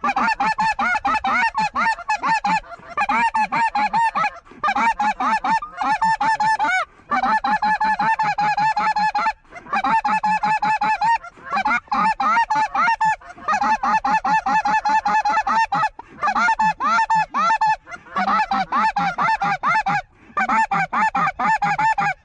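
A large flock of geese honking overhead, many birds calling at once in a dense, constant chorus, broken now and then by brief gaps.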